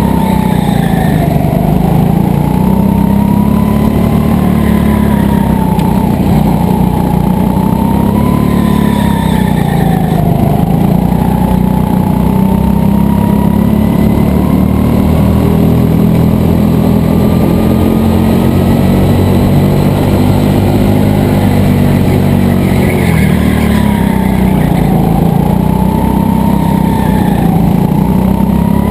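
Racing go-kart's motor running hard, heard from the driver's seat; its whine dips and climbs again several times as the kart brakes into corners and accelerates out.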